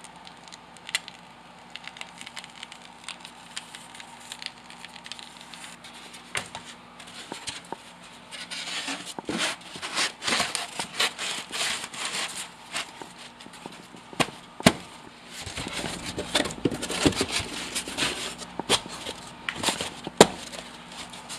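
Crackling, scraping and clicking as a rigid insulation panel, its edges beaded with spray foam, is handled and pushed into a tight framed opening. The sounds are sparse at first and grow denser and louder about eight seconds in.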